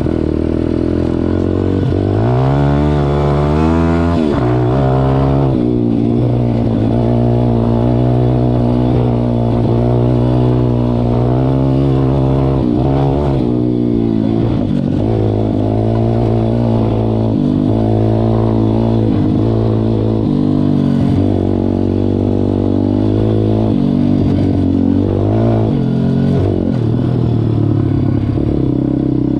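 MRF 140 RC-Z pit bike's single-cylinder four-stroke engine under way while riding. Its pitch climbs a few seconds in, drops back, then holds fairly steady with small rises and dips as the throttle changes.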